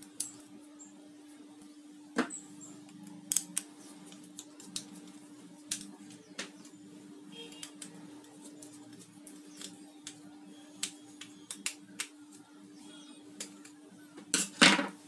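Small clicks and taps of a precision screwdriver working the screw terminal of a BNC video connector as cable wires are fastened into it, over a steady low hum. A louder clatter comes near the end as a tool is set down on the table.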